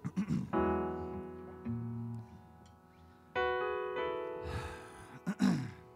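Keyboard playing slow sustained chords: one struck about half a second in, with the bass note changing a second later, and another a little past three seconds, each left to ring and fade. The chord changes follow the E to G to B flat progression just announced for the song.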